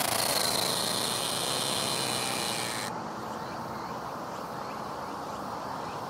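A cicada's steady, loud buzzing song, close by, that cuts off abruptly about three seconds in.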